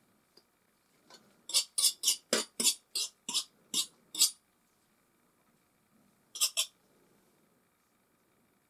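Metal palette knife scraping through oil paint in quick short strokes: about nine in a row at three or four a second, then a quick pair a couple of seconds later.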